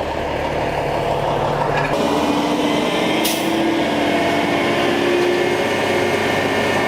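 Pump truck engine and pump winding up to set the pump rate: a steady mechanical run that grows louder over the first two seconds, then settles into a steady drone with a tone that rises slowly.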